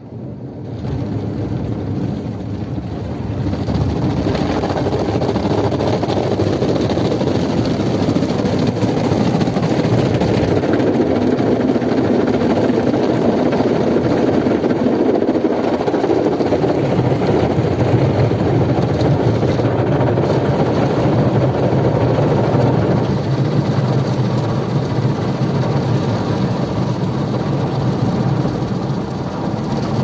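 Automatic car wash heard from inside the car: water jets pour over the windshield and body against the steady running of the wash machine. The noise builds over the first few seconds, then holds at a steady level.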